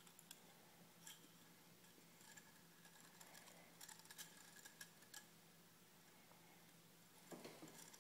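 Near silence with a few faint plastic clicks from a 3D-printed segmented model as it is bent and flexed by hand, and a soft handling rub near the end.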